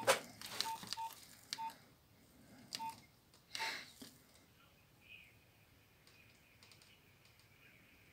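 Nokia mobile phone keypad: about six short, identical key beeps with sharp button clicks as the menus are navigated, then faint sound from the phone's small speaker as a stored voice recording plays back.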